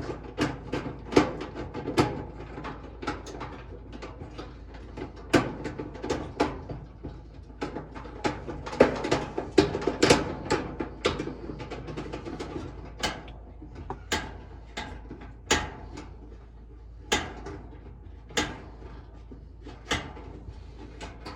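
Irregular metallic clicks, taps and knocks of a dryer's sheet-metal heating-element cover and its screws being handled and fitted, some sharp and loud, busiest around the middle, over a steady low hum.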